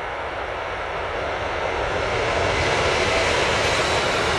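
Electric freight train, a DB electric locomotive hauling open wagons, passing close by: a steady rumble and rush that grows louder over the first couple of seconds, then holds.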